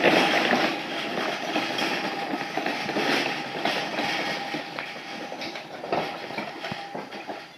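Heavy steel slide folding gate built from C-channel being pushed along on its wheels, rolling and rattling with a continuous metal clatter and a thin steady squeal running under it; it dies away near the end as the gate stops.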